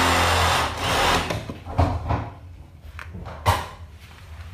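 A power tool runs with a steady hum and cuts off about a second in. Two sharp knocks or scrapes follow, the second near the end.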